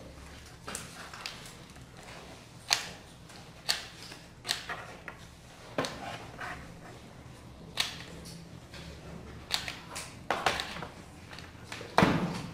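Sheets of paper being handled by hand: scattered short crackles and taps of paper, one or two a second, over a faint steady low hum, with a louder thump near the end.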